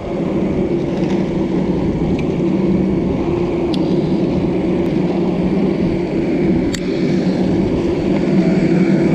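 Steady droning hum of aircraft and ground equipment on an airport apron, with a few faint clicks.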